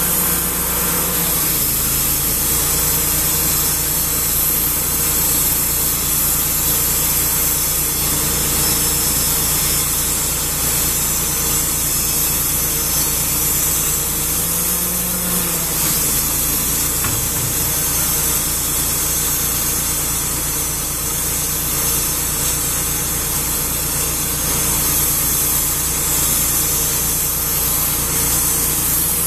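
Wood-Mizer resaw's gas engine running steadily under load while its band blade cuts poplar boards into lapboard siding, with a constant hiss of sawing over the engine. The engine note wavers briefly about two seconds in and again around the middle.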